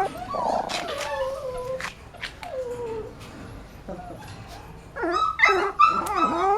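Puppies whimpering and yipping: a long falling whine in the first two seconds, a quieter stretch, then a run of short high-pitched whines from about five seconds in.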